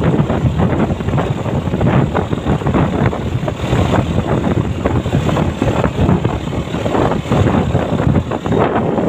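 Wind buffeting the microphone of a moving vehicle, a loud fluttering rush over the vehicle's running noise.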